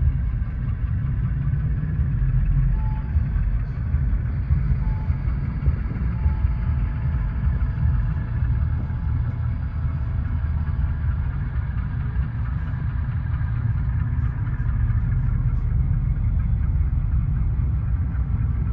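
Steady low rumble of background noise, with faint steady tones above it.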